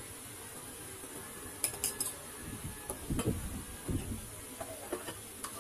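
Glass Pepsi bottle being opened and handled at a table. A few sharp clicks come about a third of the way in, then dull knocks and small glassy clinks.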